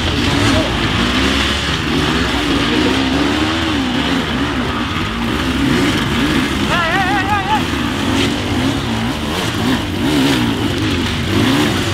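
Several enduro dirt-bike engines revving up and down unevenly as the bikes crawl up a rocky climb, their pitch wavering with each blip of the throttle. A short, high wavering sound comes through about seven seconds in.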